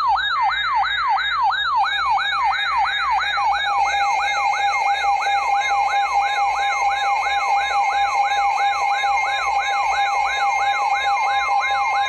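Electronic emergency alert siren: a rapid yelp sweeping up and down about three times a second over a steady alert tone.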